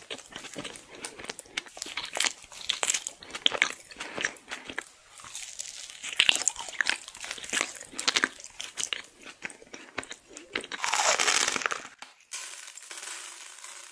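Close-miked eating: soft bites into layered sponge cake with wet chewing and lip sounds, and rustling of the foil-lined wrapper. A longer, denser rustle comes about eleven seconds in.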